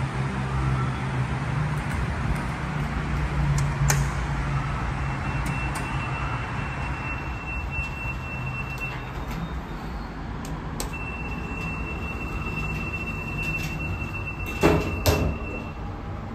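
Lift doors of a 1995 Express (GEC) passenger lift: a steady high tone sounds twice, several seconds each, over a low hum. Near the end the doors close with two loud knocks.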